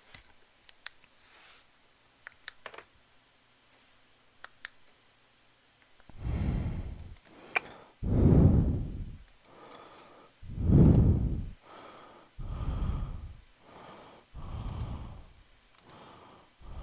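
Breathing close to the microphone: after a few faint clicks, about six loud breaths come roughly two seconds apart from about six seconds in.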